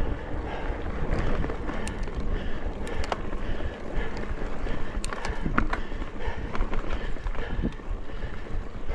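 Mountain bike rolling along a dirt singletrack: steady tyre noise and wind buffeting the microphone, with scattered clicks and rattles from the bike.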